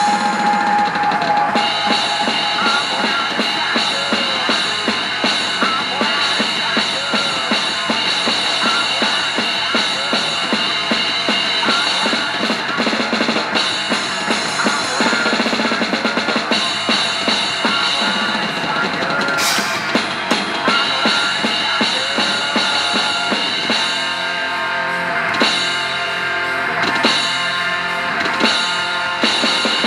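Drum kit played hard along with a thrash metal band recording: fast, driving bass drum and snare under distorted guitars and cymbals. In the last few seconds the rhythm breaks into stop-start hits.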